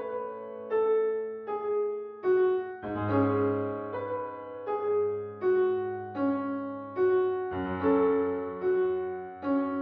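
Background piano music: a slow melody of single struck notes, about one every second, over low held chords.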